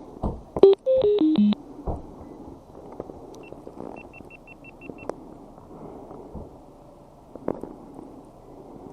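Electronic sound-effect tones: a quick run of four steady notes stepping down in pitch about a second in, then a row of six short high beeps around the middle, over a steady low hiss with a few faint clicks.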